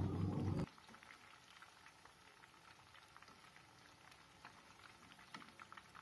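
Chicken pakoda pieces deep-frying in hot oil, a faint steady crackle and sizzle, with a few light clicks from the perforated metal skimmer near the end. A steady low hum cuts off suddenly under a second in.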